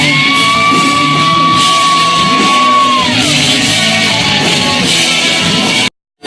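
Rock music with a singer holding one long high note, which slides down and ends about three seconds in. The music cuts off abruptly near the end.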